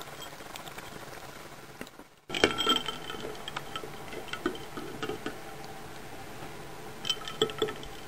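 A cat lapping water from a bowl with faint quick ticks. After a brief gap, ice cubes and a spoon clink against the bowl as the cat paws at the water, with short ringing clinks in clusters, the loudest just after the gap and again near the end.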